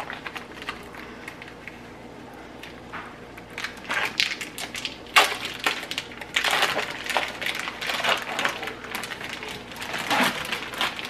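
Plastic sausage package crinkling and crackling as it is handled and peeled open by hand, in irregular bursts that begin a few seconds in.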